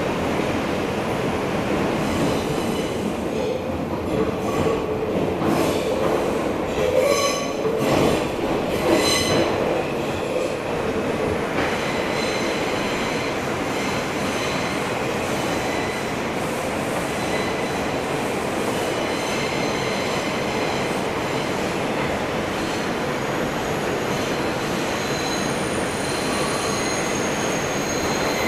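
R142 subway train running through a tunnel, heard from inside the car as a steady rumble. Its steel wheels squeal against the rails in high, thin tones that come and go, with a few sharp clicks in the first half.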